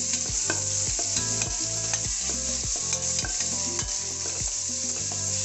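Onions and chopped tomato sizzling steadily in ghee in a stainless steel pressure cooker, stirred with a wooden spatula that scrapes and taps against the pot many times.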